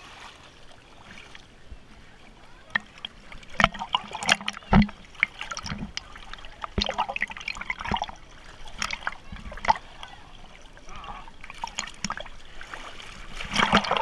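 River water splashing and sloshing close to the surface as a homemade wooden raft is pushed through the shallows by a wading man, with sudden splashes and knocks. Voices call out now and then.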